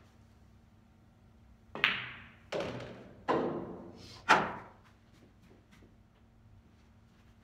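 A pool shot on a billiard table: four sharp knocks about three-quarters of a second apart, each fading quickly. The cue strikes the ball, the balls click together, and the object ball drops into a pocket.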